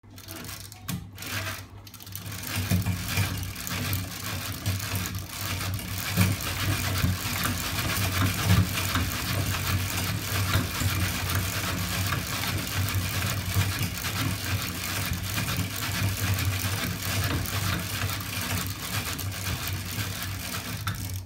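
Home-built magnet-assisted engine rig running: its roller chains, sprockets and spinning shafts with a weight-plate flywheel make a steady, fast mechanical clatter over a low hum. It comes up to speed over the first two seconds or so, after a few separate clicks.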